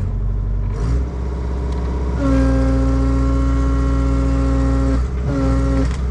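Kobelco SK100 excavator's engine running, with a loud steady hydraulic whine coming in about two seconds in as the machine takes up strain on the choked cedar logs. The whine breaks off briefly about five seconds in and again near the end.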